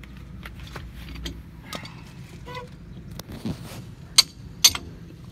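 Handling noise from a phone camera being moved and covered: scattered clicks and knocks over a low rumble, with two sharp clicks about four and four and a half seconds in.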